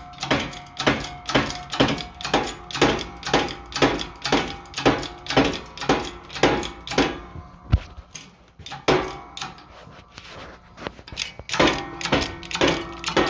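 Repeated sharp metallic knocks, about two a second, from work on the 1948 John Deere Model M's stuck engine as it is freed to turn. They stop for a few seconds in the second half, then start again.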